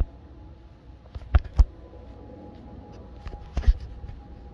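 A few short, sharp knocks and clicks in two clusters, three about a second in and two more near the end, over a faint steady hum.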